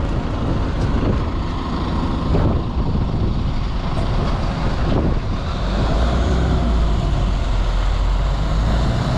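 London double-decker bus running: a steady low engine rumble with a few brief knocks and rattles in the first half, settling into an even hum near the end.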